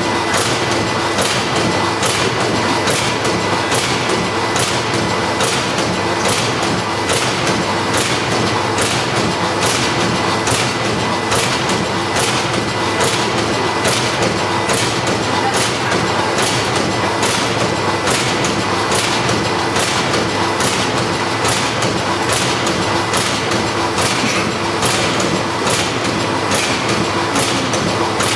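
Horizontal pouch form-fill-seal packing machine with an auger powder filler running on test: a steady mechanical clatter with sharp, regular clicks about twice a second.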